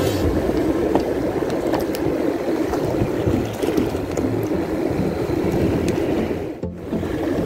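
Shallow sea surf washing over a rocky reef flat, with wind on the microphone: a steady rushing noise that dips briefly near the end.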